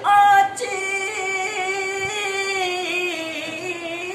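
A young male voice singing an Urdu nazm unaccompanied, opening loudly and then holding one long, gently wavering note.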